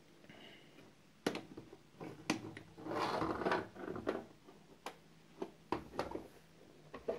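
Handling noise from a hard plastic clipper case on a wooden desk: a series of sharp knocks and clicks, with a short rustling scrape about three seconds in.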